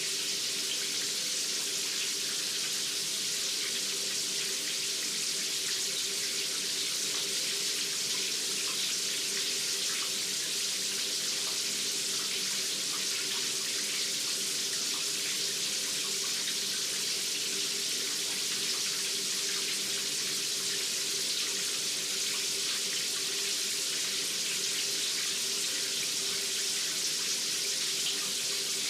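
Shower running steadily: a constant spray of water hitting the floor or tub, with no change in flow.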